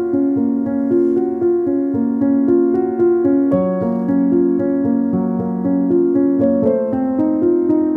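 Background music played on piano-like keyboard: a melody of short notes over held chords, with a change of chord about three and a half seconds in.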